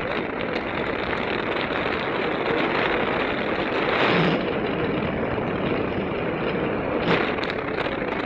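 Steady rush of airflow over the camera microphone from a paraglider in flight, with a stronger gust about four seconds in and a short knock about seven seconds in.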